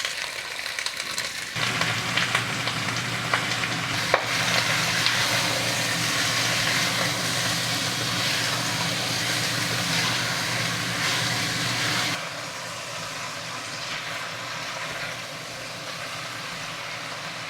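Cubes of skin-on pork belly sizzling in hot fat as they pan-fry skin side down, with a sharp click about four seconds in. The sizzle drops to a quieter level about twelve seconds in.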